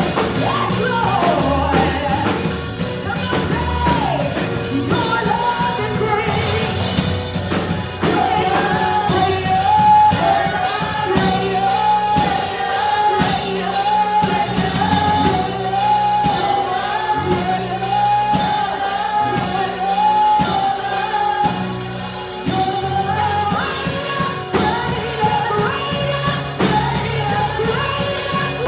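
Live gospel praise music: singing over a full band, with a steady drum beat through the middle stretch.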